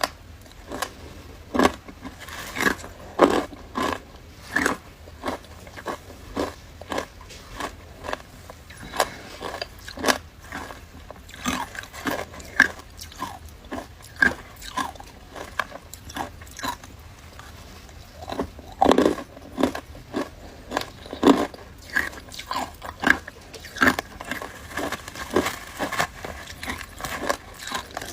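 A person biting and chewing frozen matcha ice in crisp crunches, about one to two a second, some noticeably louder than others.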